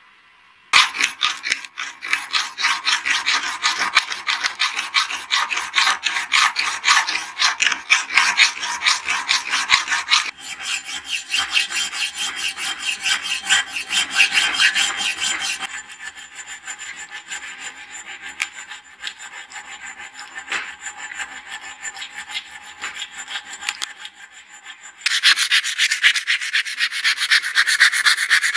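A hand file scraping back and forth over a small brass sword guard in quick, repeated strokes, shaping its cut-outs. Near the end this gives way to louder sandpaper rubbing over the brass to smooth it.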